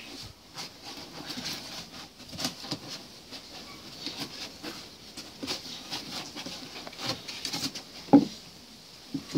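Staffordshire bull terrier tugging at a knotted rope toy on wooden decking: irregular scuffing, pattering and clicks of paws and rope on the boards, with one short louder thud about eight seconds in.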